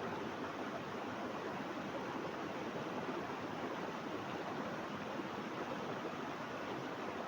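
Steady rushing of flowing water, an even hiss and rumble with no break or change.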